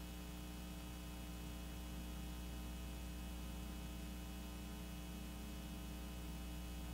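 Steady low electrical mains hum with a stack of even overtones, unchanging throughout.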